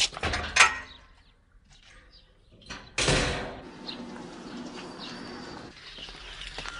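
A few sharp knocks, then a sudden loud bang about three seconds in that dies away over about a second.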